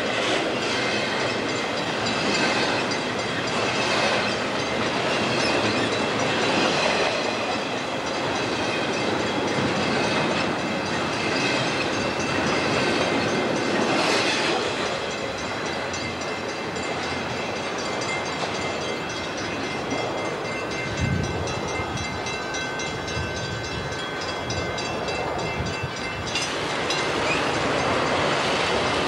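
Double-stack container cars of a Chicago & North Western freight rolling past close by: a steady rumble with rhythmic clicking over rail joints and several steady high ringing tones from the wheels. About 26 seconds in, the sound changes abruptly to a Metra bilevel commuter train rolling past.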